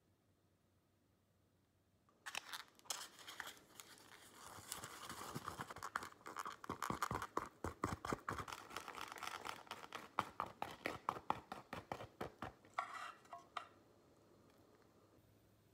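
Chopsticks scraping and clicking against a thin plastic natto pack as sticky natto is worked out of it. A fast, uneven run of scrapes and taps starts about two seconds in and stops shortly before the end.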